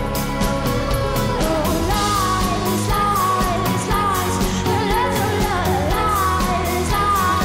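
A song playing: a singing voice over a band with a steady beat, in a pop-rock style.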